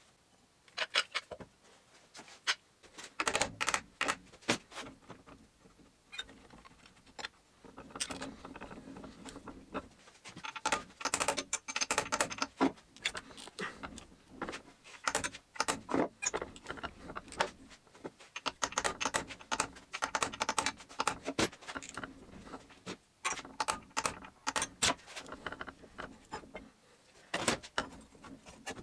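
Irregular metallic clicking and clinking from hand tools on a steel tube fitted over the gearbox shaft, as a ball bearing is seated in an aluminium gearbox casing. The clicks come in quick clusters with short pauses between them.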